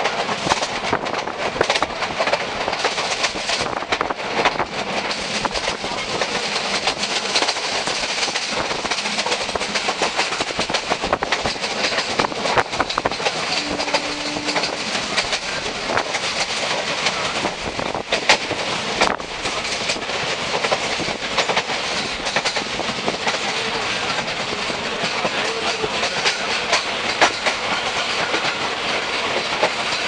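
Passenger train running at speed, heard from a window seat: a steady rush of wind and rail noise, broken by a few sharp clacks of the wheels over rail joints.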